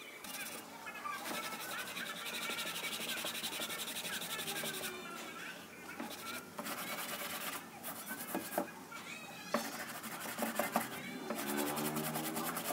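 A hand sanding block rubbed back and forth over MDF picture frames, smoothing dried wood filler: a dry, scratchy rubbing that comes in stretches of a second or more with short pauses between. Background music plays under it.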